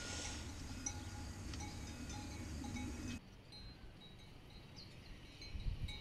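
Faint cowbells on grazing cattle, ringing now and then. About three seconds in the sound cuts abruptly to a quieter background.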